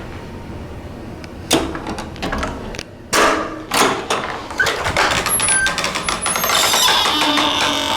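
Door hardware on a door with a Sargent door closer and mortise lock: a series of sharp latch clicks and knocks as the door is worked, the loudest about three seconds in, then a busier stretch of rattling clicks near the end.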